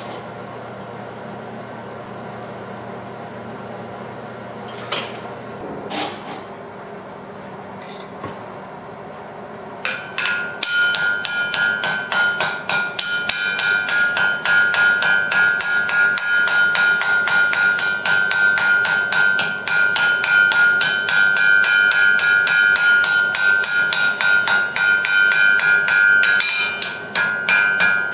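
Hand hammer striking glowing iron on a steel anvil in a long run of rapid, steady blows, the anvil ringing with each strike, starting about ten seconds in and stopping near the end. Before it, a low steady hum and a few separate clicks.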